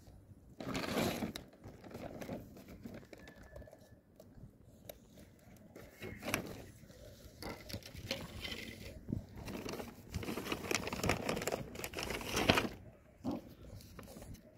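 A cat eating wet food from a foam tray, mixed with bouts of crinkling and scraping from a polystyrene tray being handled. The crinkling comes about a second in, again midway, and longest near the end.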